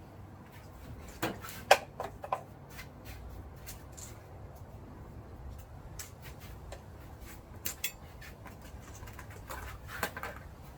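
Scattered sharp metallic clicks and clinks from handling scrap wire and a manual wire stripper. There is a quick cluster about a second and a half in, another pair near eight seconds and a few more near the end, over a low steady hum.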